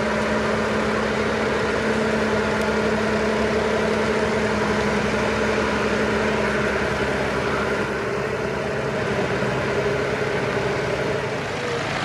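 Massey Ferguson 1200 articulated tractor's six-cylinder diesel running steadily close by. Its engine note drops slightly about seven seconds in.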